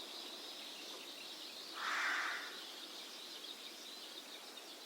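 Faint outdoor morning ambience sound effect: a steady hiss with soft, flickering bird twittering, and one brief louder noisy swell about two seconds in.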